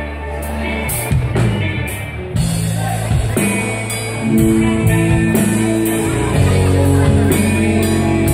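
Live rock band playing an instrumental intro: electric guitars on held chords over bass and drum kit with regular cymbal strokes. The playing is sparse at first, and the full band comes in about two and a half seconds in, growing louder soon after.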